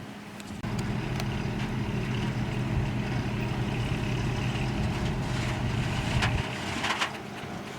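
Heavy diesel engine of earthmoving machinery running under load: it comes up loud just under a second in, holds steady, and eases back about six and a half seconds in, with a few sharp metallic clanks near the end.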